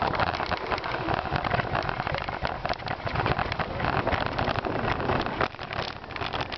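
Bicycle tyres and running dogs' paws crunching over packed snow at speed: a continuous dense crackling patter.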